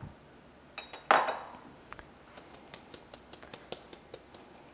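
A sharp clink about a second in, then light, quick ticking and scratching, about five ticks a second, from a fine-mesh metal strainer being tapped to sift flour over a glass bowl of batter.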